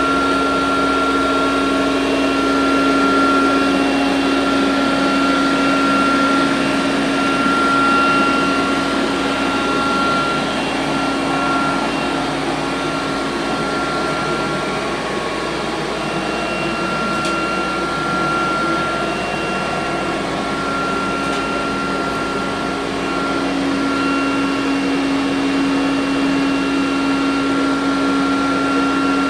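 Electrolux robot vacuum cleaner running: a steady motor hum with a high whine over it.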